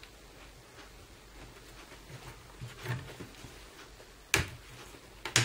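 Plastic clips of a Dell Latitude E7250 laptop's keyboard bezel snapping free as it is pried off by hand: a faint click about three seconds in, a sharp snap about four seconds in, and a quick double snap near the end.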